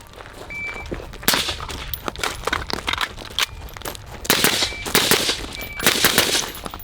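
Rifle shots fired while moving: one shot about a second in, then after a stretch of quieter clicks and steps, a quick run of several shots near the end.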